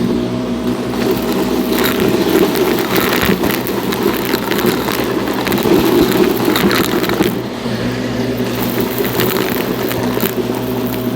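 Shark NV351 upright vacuum cleaner running steadily, with crunchy crackling of debris being sucked up through the nozzle for most of the stretch, thinning out to a smoother motor drone in the last few seconds.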